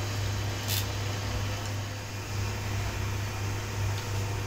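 Steady low machine hum, like a motor or fan running, with a brief light click about three-quarters of a second in.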